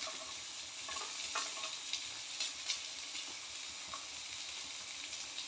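Hot oil and ghee sizzling steadily in a steel pan as diced carrot is tipped in, with scattered light crackles and clicks.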